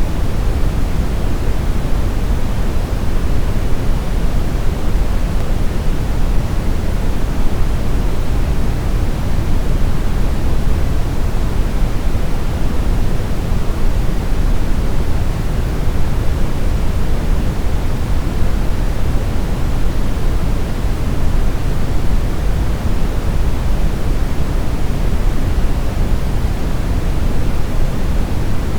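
Brown noise: a steady, deep rumbling hiss with its energy in the low end, unchanging throughout.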